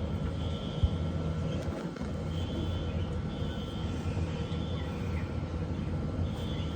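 Outdoor background: a steady low rumble with short, high, buzzing notes repeating about once a second, and a single soft knock about a second in.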